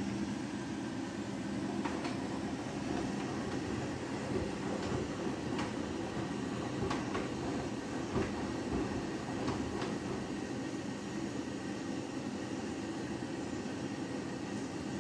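Front-loading washing machine in a rinse, its drum turning wet laundry through water and foam: a steady low running rumble with water sloshing and a few faint knocks.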